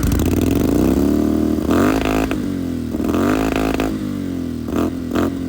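Engine revving loudly, its pitch repeatedly falling and climbing again, with sharper rev surges about two, three and five seconds in.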